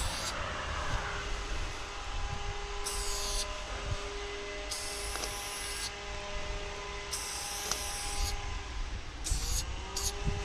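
Aerosol spray-paint can spraying in about six separate bursts of hiss, some brief and some over a second long, as lines are drawn. A steady low rumble with a held hum runs underneath throughout.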